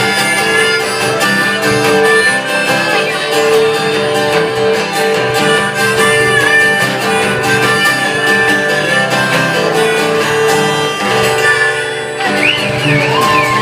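Live band playing the instrumental ending of a country-style song, led by acoustic guitar over a steady repeated note. A brief high wavering sound rises over the music near the end.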